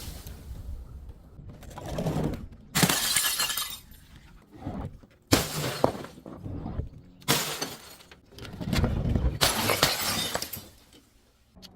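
Glass bottles breaking: four sudden shatters about two seconds apart, each followed by a second or so of crunching glass.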